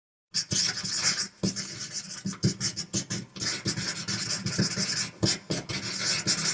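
Marker scratching on a whiteboard in quick, rapid strokes as text is written, starting about a third of a second in.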